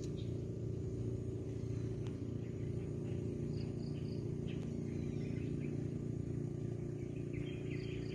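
Outdoor ambience: a steady low hum with faint high chirps, a quick run of three about three and a half seconds in and again near the end.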